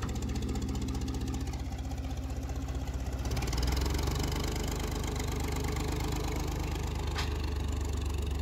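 Ford front-loader tractor's engine running, throttled up about three seconds in and staying louder as the loader picks up and carries a pallet load.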